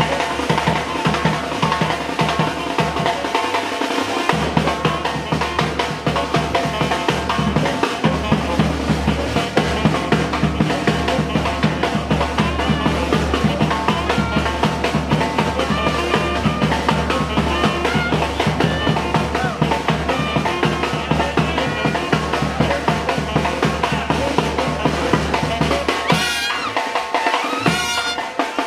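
Panamanian murga band of brass and drums playing loudly: held horn notes over dense snare and bass drum beats. Near the end the low horns drop out, leaving sharp snare strokes and a drum roll.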